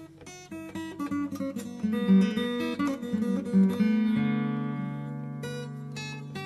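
Background music: acoustic guitar picking a run of notes, then a chord that rings out and fades about four seconds in.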